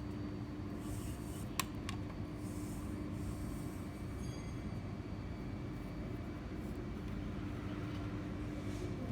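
Steady low rumbling background noise with a constant hum, broken by two sharp clicks close together about a second and a half in.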